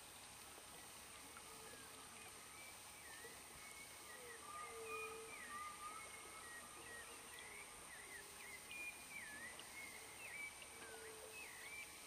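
Faint chorus of wild animal calls: many short pitched calls, some falling or hooked and others held lower, over a steady high whine.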